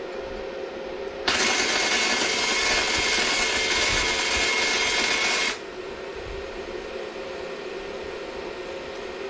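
Stahlwerk MIG 135 M IGBT inverter welder running flux-core wire on scrap steel: the arc strikes about a second in, runs as a steady hiss for about four seconds, then cuts off suddenly.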